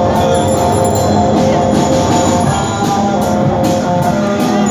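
Live band playing through the stage speakers, electric guitars and drums, loud and steady.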